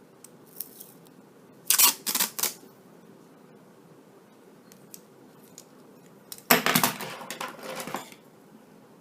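Black tape and scissors being handled while the tape is wrapped over a cable: three quick crackly bursts about two seconds in, then a longer ripping stretch of about a second and a half near the end, like tape being pulled off its roll.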